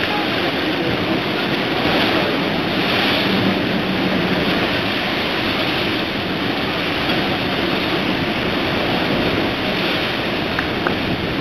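Rough sea breaking and churning against a ship's hull, a steady rush of surf with wind buffeting the microphone.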